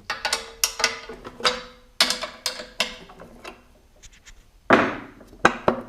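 Jaguar 3.8 engine parts clicking and knocking against each other as a loose-fitting part around the front oil seal is handled, with a faint ringing tone behind the first few seconds and a louder scrape about five seconds in. The knocking is the sign of the play: the part sits sloppy and relies on the oil seal to line it up.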